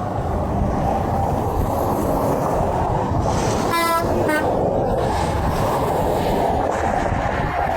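Semi truck air horn giving one brief blast of about half a second around the middle, over the steady rumble of heavy highway traffic.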